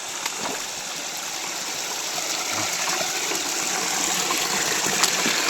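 Waterfall water rushing with a steady hiss that grows gradually louder.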